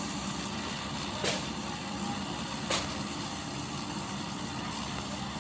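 John Deere W70 combine harvester running steadily as it harvests, a continuous engine drone. Two sharp clicks sound about a second and a half apart.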